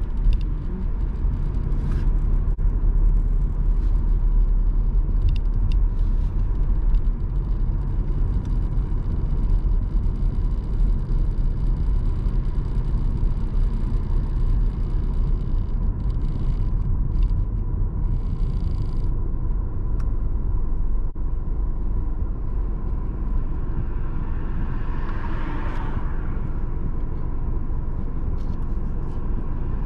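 A car driving through city traffic, heard from inside the cabin: steady low rumble of engine and tyre noise on the road.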